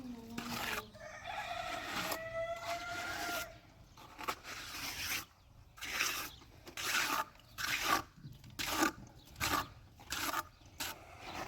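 A rooster crows once, starting about a second in, in one long call that holds its pitch and then falls slightly. A string of short, irregular noises follows in the second half.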